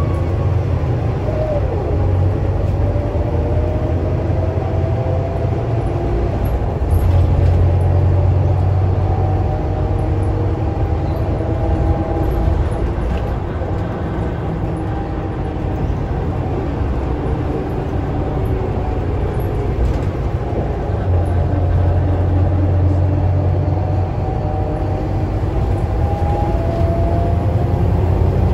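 Scania K320UA articulated city bus heard from inside the passenger cabin while driving: a steady low diesel engine drone with driveline whine and road noise. The drone swells twice, about a quarter of the way in and again past two-thirds, as the engine comes under load.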